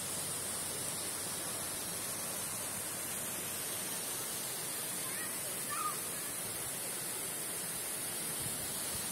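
Waterfall and mountain creek rushing steadily, with one short call about six seconds in.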